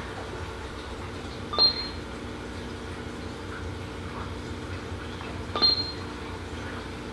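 Two short, high beeps about four seconds apart, each starting with a click, over a steady low hum. They are the communication device's feedback beeps as selections are made on it.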